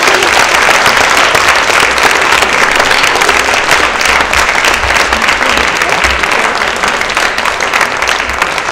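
Audience applauding: loud, dense clapping from many hands, thinning into more separate claps near the end.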